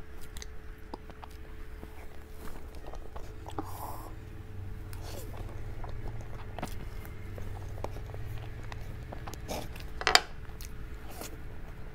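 A person eating soft cream cake with a spoon: wet chewing and mouth sounds with small scattered clicks, and one sharp, louder click about ten seconds in. A faint steady hum sits underneath.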